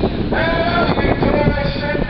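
A man's voice shouting through a handheld megaphone, harsh and boomy, in long drawn-out words that begin about a third of a second in, over steady street noise.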